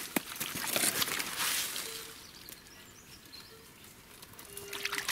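Rustling and crackling in dry leaf litter and twigs for about two seconds, then a quieter outdoor background with a few faint short tones.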